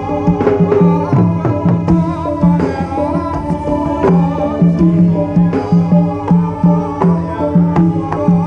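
Live Javanese gamelan music, played loud: a kendang hand drum beats a quick, even pattern over struck metal notes that repeat steadily.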